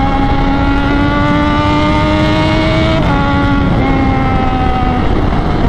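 Triumph Daytona 675's three-cylinder engine through a loud aftermarket sport exhaust, pulling under load on the move, with wind rush. Its pitch climbs steadily for about three seconds, drops suddenly at a gear change, then holds and eases lower near the end.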